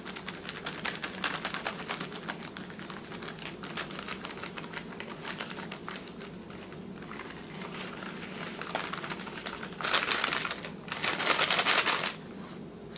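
Plastic bag of dry cake mix crinkling as the mix is shaken and sprinkled over a baking pan: a steady run of fine crackly clicks, with two louder bursts of rustling near the end.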